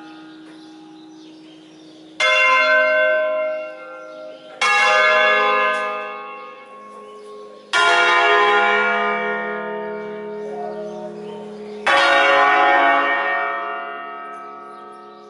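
Church bells from an eight-bell ring in D-flat cast by Crespi in 1951, swung on wheels and rung one at a time in a solemn bell concert. Four separate strokes, each striking suddenly and ringing on with a long fading hum.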